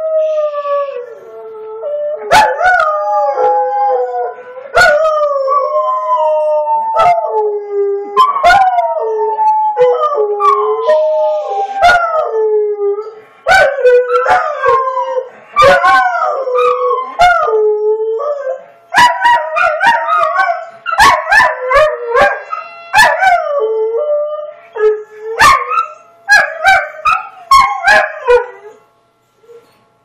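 Dogs howling at a tornado siren: long howls that slide down in pitch, turning into shorter, choppier yips and howls in the second half, then stopping shortly before the end.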